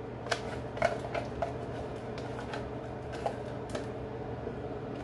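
Light, scattered taps and scrapes of a utensil against a dish as its last contents are emptied into a cooking pot, about seven clicks in all over a steady low hum.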